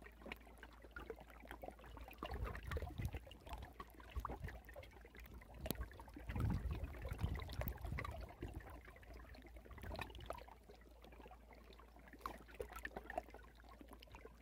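Faint river water lapping and trickling against a gravel shore, with scattered small clicks and ticks.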